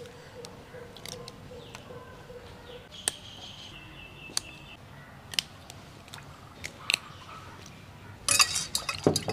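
Scattered light clicks and taps of dried kudampuli pieces being broken by hand and dropped into a bowl, with a short clatter near the end.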